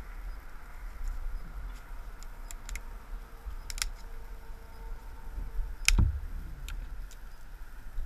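Small twigs and branches being handled and snapped by hand: a scatter of sharp clicks and cracks, the loudest about six seconds in.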